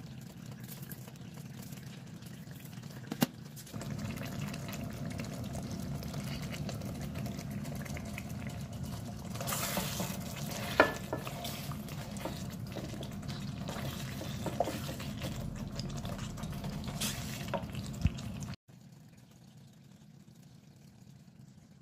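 Thick beef rendang sauce simmering and being stirred in a stainless steel pot with a wooden spatula. There is a steady low bubbling and scraping, with a few sharp knocks of the utensils against the pot. The sound cuts off sharply a few seconds before the end.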